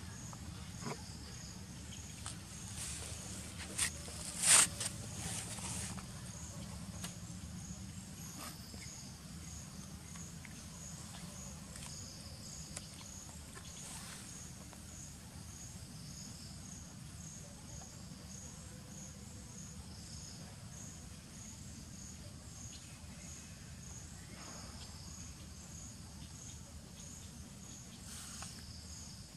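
Insects chirping in a steady, high pulsing rhythm of about two pulses a second, over a low steady outdoor rumble. A few sharp clicks about four to five seconds in are the loudest sounds.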